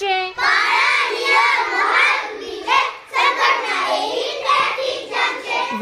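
A group of children singing a line of a Marathi poem together in chorus, many voices overlapping, in two phrases with a short break about three seconds in.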